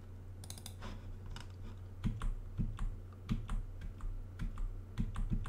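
Computer keyboard arrow keys and mouse buttons clicking: a string of short, irregular clicks, some in quick pairs and runs, as frames are stepped back and forth.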